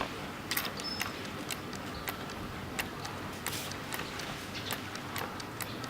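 Irregular light clicks and taps, a few each second, over a steady background hiss.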